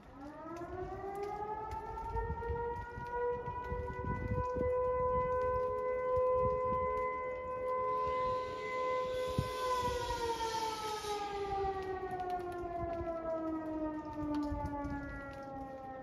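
Motor-driven fire siren sounding its noon blast: it winds up over a few seconds to a steady wail, holds, then winds down in a long falling glide.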